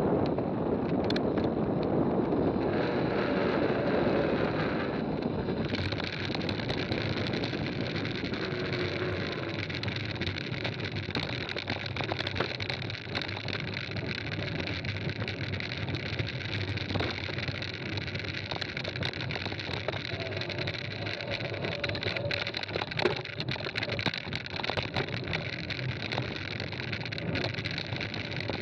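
Wind rushing over the camera microphone on a fast-moving mountain bike. From about five seconds in this gives way to tyres rolling on gravel, a steady crunching hiss with many small clicks and rattles from the bike.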